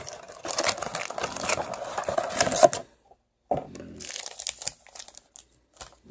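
Wrapping crinkling and tearing as a trading-card blaster box is opened, in two spells with a brief pause about three seconds in, then a few light clicks.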